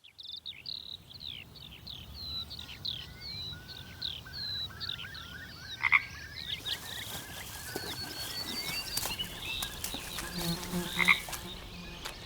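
Outdoor wildlife calls: a long run of rapid, high chirps that sweep down in pitch, typical of birdsong, with croaking calls in the background, one low and pulsing about ten seconds in.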